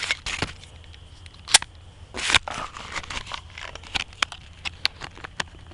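A pistol holster being handled close by, with scattered clicks and taps and a brief rustling scrape about two seconds in, as the pistol is fitted into it.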